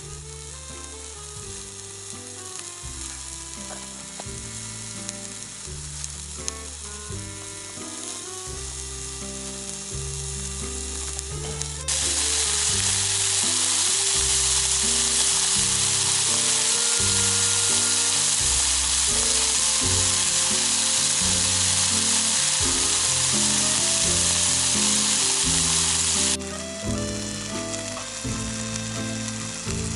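Food sizzling as it fries in a pan, a steady hiss that turns suddenly much louder about twelve seconds in and drops back about twenty-six seconds in. Background music with a steady beat plays under it.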